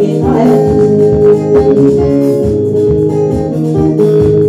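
Live mugithi band music: an electric guitar playing over held organ-like chords and a steady bass beat, with no singing.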